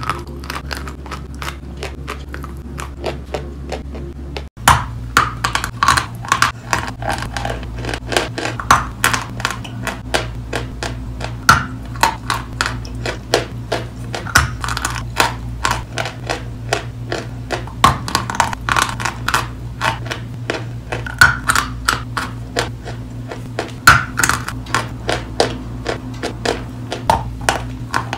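Close-miked chewing and crunching of chalk, many crisp crunches in quick, uneven succession over a steady low hum. About four and a half seconds in the sound cuts abruptly to another recording, where the crunches are louder and denser.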